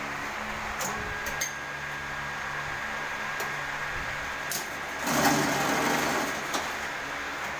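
Automatic tin filling and cap-sealing machine running with a steady hum and a few sharp clicks. About five seconds in, a louder noisy burst of about a second and a half as the sealing head comes down on a tin's cap.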